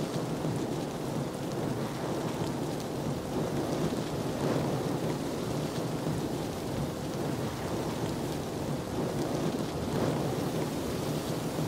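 Steady rushing outdoor ambience with no distinct events.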